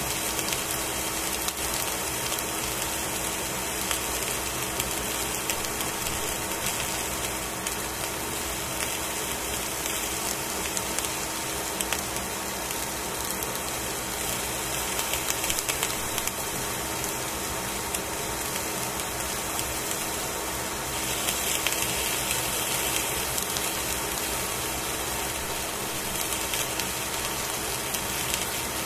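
Fish fillets sizzling on aluminium foil in a hot pan: a steady frying hiss with fine crackles, over a faint steady hum.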